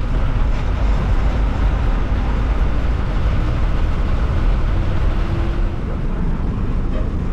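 Steady engine and road noise of a moving bus heard from inside its cabin, a loud low rumble with a slight drop in level near the end.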